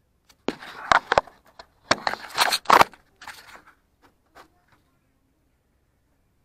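Handling noise: a quick, irregular run of sharp clicks, knocks and rustles, stopping a little under five seconds in.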